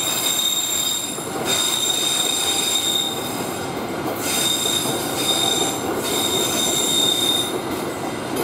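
Passenger train coaches rolling past on a curve, steel wheels squealing against the rails in high, sustained tones that come and go several times over the steady rumble of the wheels.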